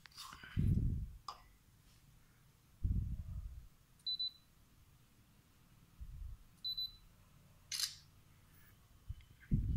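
Smartron t.phone P camera app taking photos: two short high beeps and a sharp shutter click, among dull bumps of the phone being handled.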